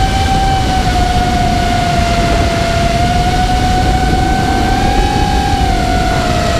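FPV quadcopter's motors and propellers whining at a steady pitch that wavers with throttle, rising a little about five seconds in and dipping slightly near the end. Heard through the onboard camera's microphone, with wind rumble.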